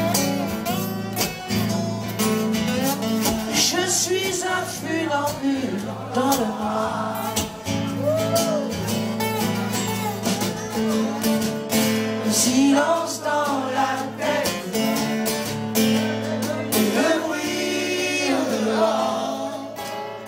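Live band music: two acoustic guitars strummed, with a male voice singing.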